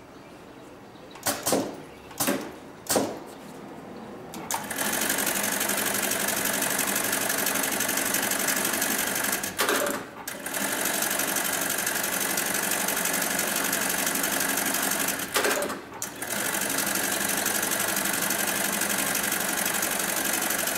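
HighTex BAS-326G direct-drive programmable pattern sewer stitching a zigzag pattern into safety-belt webbing, running fast and steady with two short pauses. Before it starts there are a few sharp clicks as the webbing is set under the clamp.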